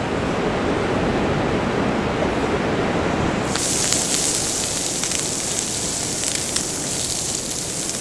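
Steady rushing of wind and surf. About three and a half seconds in it gives way to meat sizzling and crackling on a griddle over a portable gas burner.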